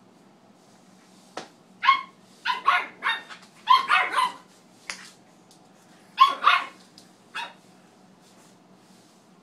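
A pug puppy barking in short, high yaps: a quick run of barks from about two to four and a half seconds in, a pair around six seconds, and a last one near seven and a half seconds.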